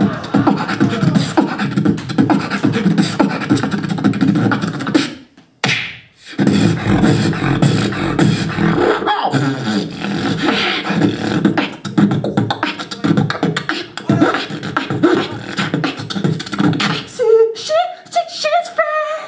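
Human beatboxing into a handheld microphone: dense, fast vocal percussion patterns. It stops for about a second near five seconds in, then a second beatboxer takes over, closing with a few held pitched vocal notes near the end.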